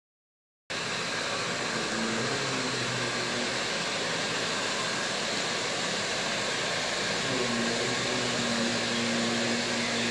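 Steady whirring hiss of a small motor-driven fan, with a faint low hum. It starts just under a second in, after a brief silence.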